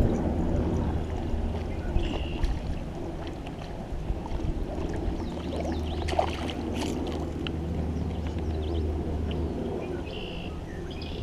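Kayak on the water, with water splashing and lapping against the hull over a steady low rumble.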